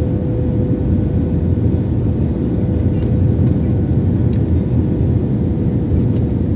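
Airbus airliner's jet engines and airflow heard inside the passenger cabin: a steady, even rumble with a faint constant hum above it.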